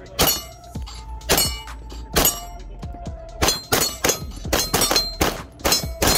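Walther pistol fired at steel targets: three shots about a second apart, then a fast string at about four shots a second from about halfway. The steel plates ring between the shots.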